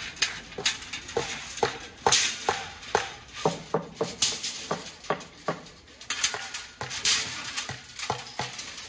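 Steel rebar clanking as long bars are pulled off a hand cart and dropped onto a pile: an irregular run of sharp metallic knocks, roughly two a second, each ringing briefly.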